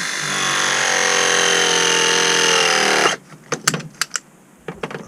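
Battery-powered ProPress pressing tool running through a press cycle on a copper fitting: a loud motor run whose pitch sags under load near the end, cutting off suddenly about three seconds in, followed by several sharp clicks as the jaws are handled.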